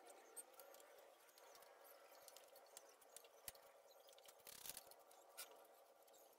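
Near silence: faint room tone with a few soft clicks and a brief rustle a little past the middle.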